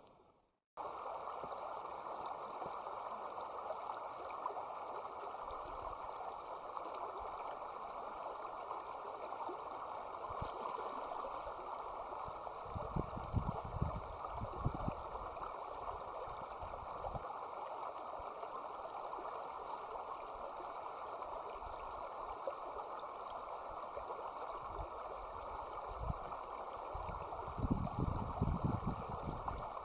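River water flowing in a steady rush, starting about a second in. A few low bumps come around halfway and near the end.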